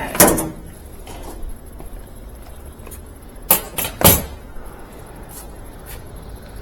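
Sharp knocks and clunks from parts being handled on a washing machine: one just after the start, then three in quick succession around three and a half to four seconds in, with a few lighter ticks, over a low steady hum.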